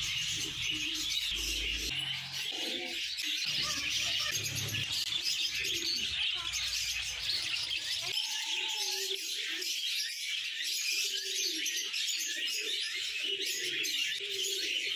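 Many caged birds chirping at once in a dense, continuous chatter, with lower repeated calls joining in during the second half.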